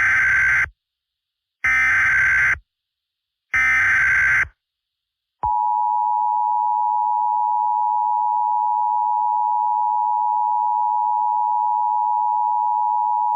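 Emergency Alert System signal: three short bursts of SAME header data tones, each just under a second with about a second's gap between them. About five seconds in comes the steady two-tone EAS attention signal, held for about eight seconds, which announces the alert message.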